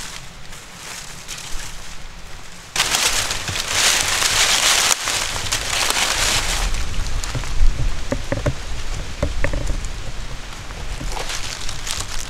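Footsteps crunching loudly through dry fallen leaves, starting suddenly a few seconds in, followed by scattered cracks and knocks as dry bark and dead branches are handled.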